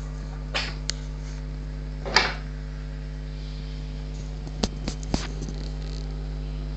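A cat sneezing twice, two short sharp bursts about a second and a half apart, the second louder, over a steady electrical mains hum. A few sharp clicks follow a couple of seconds later.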